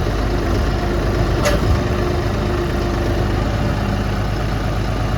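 Tractor engine running steadily at idle, with one sharp click about a second and a half in.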